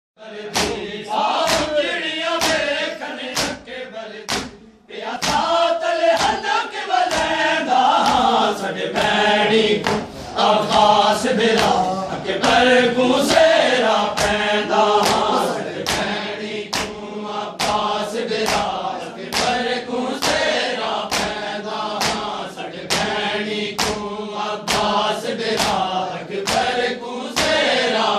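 Men's voices chanting a Muharram lament while the group beats their chests in unison with open hands, a sharp slap about twice a second. Both the chant and the strikes pause briefly about four and a half seconds in.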